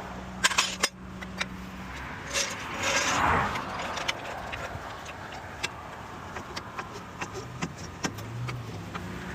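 Traffic passing close on a highway, one car swishing by about three seconds in, over a low steady engine hum. Sharp clicks near the start and scattered light clinks through the rest, like keys or tools being handled.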